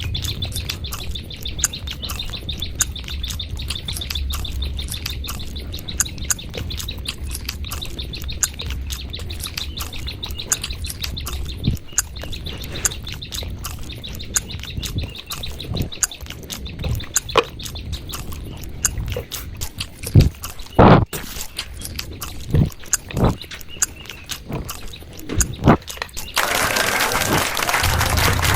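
Close-miked eating: chewing and mouth clicks, a few louder ones about three-quarters of the way through, over a steady high chirping. A louder hiss comes in near the end.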